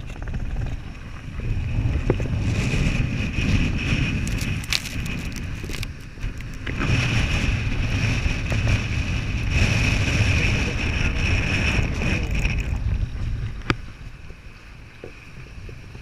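Strong gusty wind buffeting the microphone, over the wash of waves breaking on jetty rocks. The wind comes in two long gusts, then eases near the end, where there is a single sharp click.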